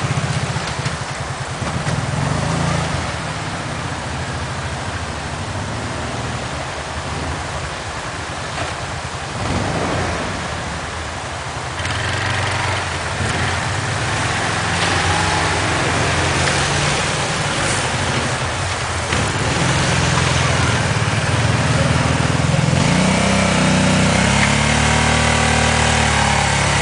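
ATV engine running at low, shifting revs as the quad picks its way over a steep bank, then revving harder and louder over the last few seconds as it climbs the grassy slope.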